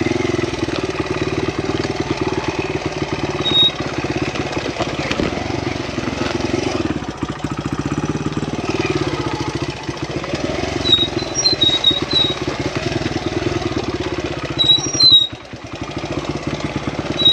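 Honda XR100R's small four-stroke single-cylinder engine running at low, steady revs as the dirt bike picks its way slowly over rough trail. Near the end the throttle drops off briefly, then picks up again.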